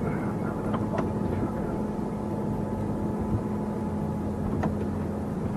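Vehicle engine running, a steady low hum, with a few faint clicks.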